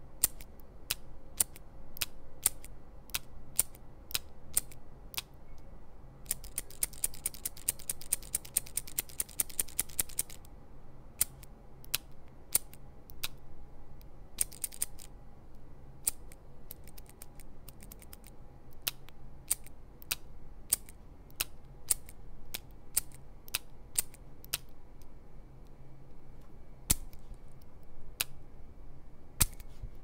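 Push-button click of an Ohto multi-pen pressed over and over, a muted, mushy click. The clicks come singly at an uneven pace, with a rapid run of about ten a second lasting some four seconds near the start.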